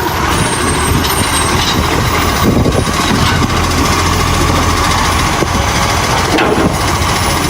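Steady truck engine idling sound with a low, even hum.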